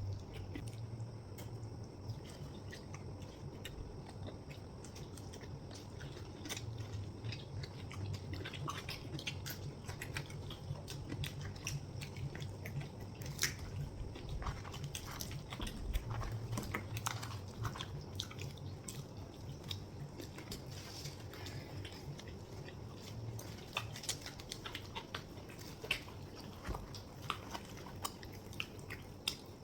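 Close-up eating sounds of chhole bhature (deep-fried bhatura bread with spicy chickpea curry) being bitten and chewed: a steady run of small wet mouth clicks and smacks over a low steady hum.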